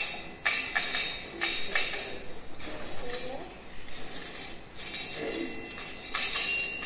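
Children shaking small jingle bells and hand bells in short, irregular jangling bursts.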